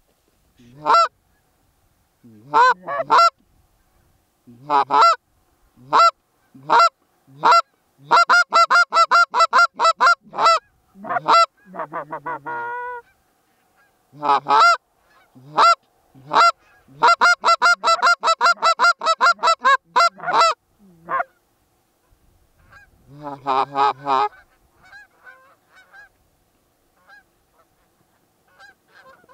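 Canada goose honking: loud single honks, then rapid runs of clucks and honks at about six or seven a second, with a wavering drawn-out call about halfway through and a lower, softer cluster later.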